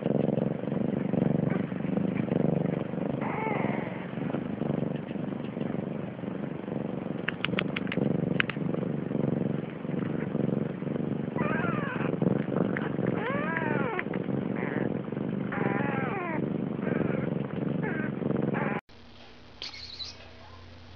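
Newborn kittens mewing in short, high, rising-and-falling cries while they nurse, mostly in the second half, over a loud, steady low rumble. About two seconds before the end the sound cuts away to quiet.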